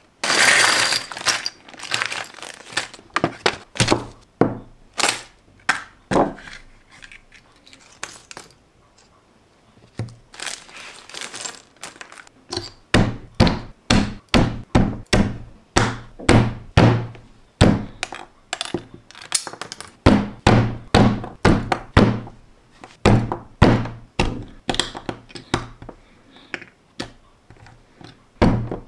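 Crinkly plastic polybag rustling at first, then a long run of sharp knocks and clicks, about one to two a second, as small LEGO plastic pieces are pressed together with a handheld tool against a hard tabletop.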